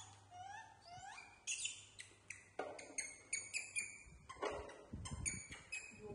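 Baby macaque monkeys calling: a few upward-sliding cries, then a quick run of short, high-pitched squeaks.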